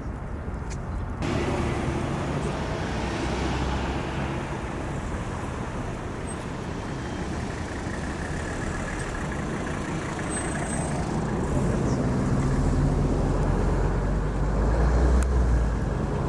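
Road traffic: vehicle engines running under a steady wash of tyre and road noise. A louder vehicle passes near the end with a deep rumble.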